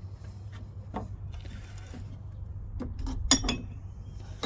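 Steel hand tools (Bonney T-handles) being handled: a few knocks and a short scrape, then a sharp ringing metal clink about three seconds in, followed by a couple of lighter knocks, over a low steady hum.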